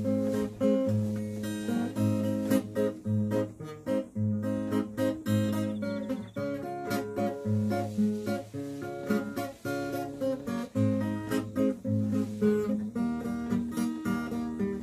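Acoustic guitar playing a tune: a continuous run of plucked notes over a recurring low bass note.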